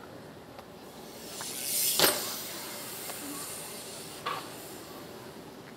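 Wheels rolling fast past the camera in a rising rush that ends in a sharp clack about two seconds in; a fainter click comes about two seconds later.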